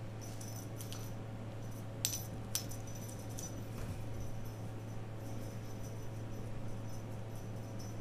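Light clicks and small tinkling jingles from kittens playing with a feather wand toy on a hardwood floor, with two sharper clicks about two seconds in, over a steady low hum.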